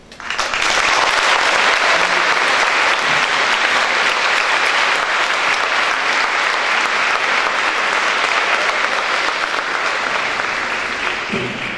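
Audience applauding, starting right away, holding steady and tapering off near the end.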